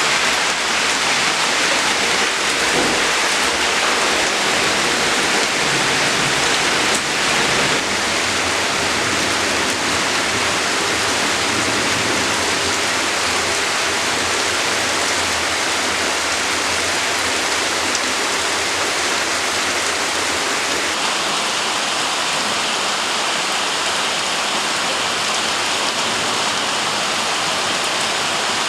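Heavy monsoon rain pouring down in a steady, dense hiss.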